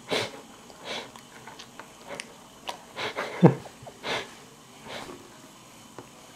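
A toddler's short breathy huffs and small voiced grunts, about six in a row, the loudest a falling grunt about three and a half seconds in.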